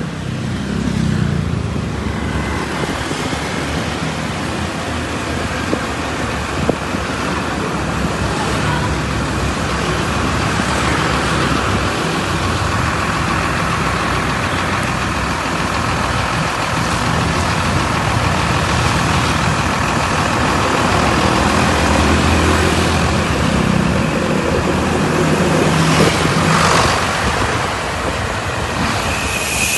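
Buses and other heavy road traffic passing close by: steady diesel engine rumble and tyre noise, swelling as a large vehicle passes near the start and again near the end.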